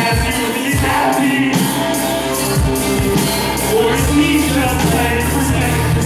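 Live music played loud through a stage PA: a vocalist performing into a handheld microphone over a band or backing with a steady beat of about two strokes a second.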